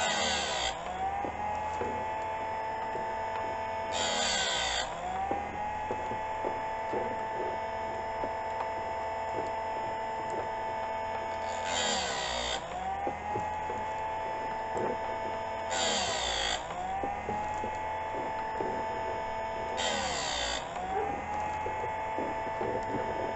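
Harbor Freight tabletop chainsaw chain sharpener running, its grinding wheel brought down onto a chain tooth in short grinding bursts five times, about every four seconds. At each touch the motor's whine drops in pitch under the load and climbs back once the wheel lifts.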